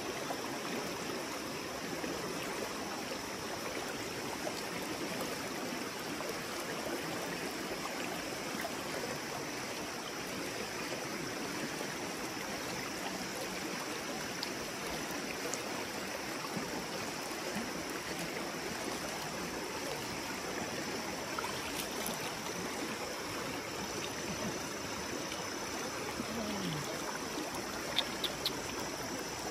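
River water running steadily over stones, a continuous rushing, with three quick clicks near the end.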